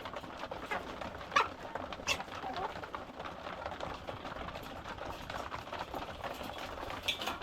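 A flock of laying hens clucking in short calls while feeding, with scattered sharp taps of pecking.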